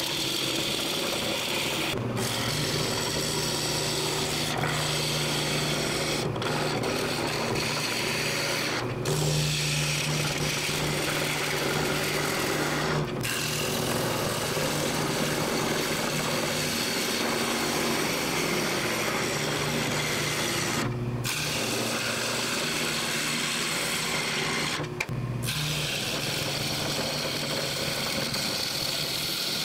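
A Jet wood lathe running with a carbide chisel cutting into a spinning wooden bowl blank: a steady scraping hiss of the tool on the wood over the low hum of the lathe, broken by a few momentary gaps.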